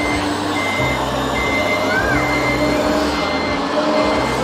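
Electronic reversing beeper of an RC construction model, sounding a series of high beeps over a low intermittent motor hum.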